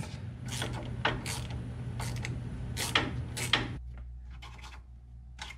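Short, sharp clicks from hand tools at the truck's front spindle, in irregular strokes about every half second, as the grimy ABS wheel-speed sensor is worked loose. A low steady hum runs underneath.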